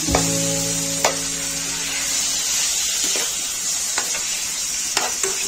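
Marinated chicken pieces sizzling as they fry in hot oil in a frying pan, stirred with a wooden spatula that clicks sharply against the pan a few times.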